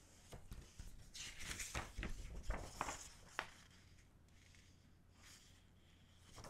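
Paper and glossy card rustling and crackling as a folded poster is slid out from the album's inserts by gloved hands. There is a quick run of crinkles through the first three seconds or so, then only faint handling, and another rustle right at the end.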